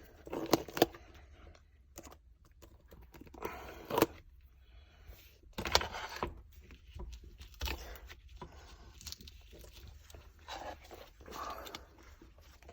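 A Microsoft Surface Pro 4 keyboard cover being taken apart by hand: irregular sharp clicks and short scrapes as parts are worked loose, strongest around four seconds in and again around six and eight seconds in.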